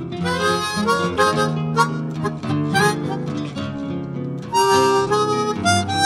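Background music: a harmonica melody over strummed or picked guitar.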